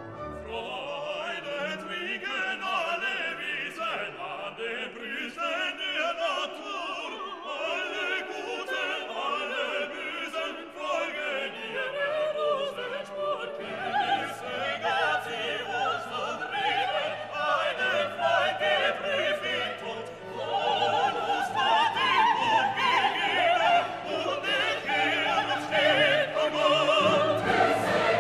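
Orchestral classical music with operatic singing, growing fuller in the low range about halfway through and louder near the end.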